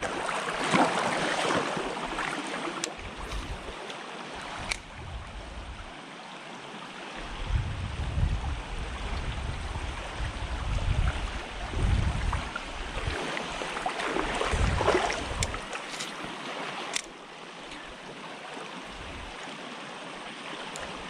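Shallow stream water running over a gravel riffle, with heavy low rumbles on the microphone through the middle stretch and a couple of sharp clicks.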